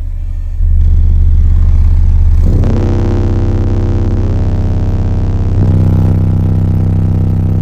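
Aura Monstro 15D1 15-inch subwoofer, driven by a Phoenix Sport 1.4500 amplifier at 0.5 ohm, playing a loud 32 Hz test tone at full power inside a car cabin for an SPL meter reading. About two and a half seconds in, a buzzing edge of overtones joins the deep tone, and it gets louder again near six seconds. The amplifier puts out about 2.9 kW on this tone, and the reading comes to 148.18 dB.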